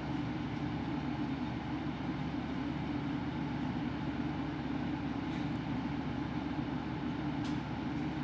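An electric motor running steadily with a constant, unchanging hum.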